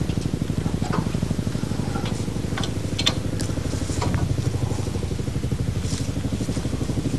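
Forklift engine idling with a fast, even throb. A few short metal clinks and knocks come from steel-framed stall panels being handled.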